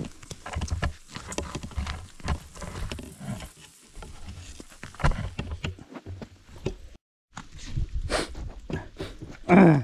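Footsteps crunching in snow with scattered clicks and handling noise. Near the end comes one loud, short voice sound that falls in pitch.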